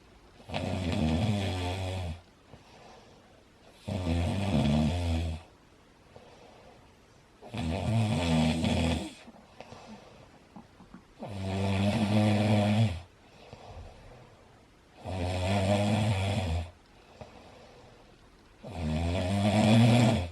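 A man snoring very loudly: six long snores, one about every three and a half seconds, with quiet between them.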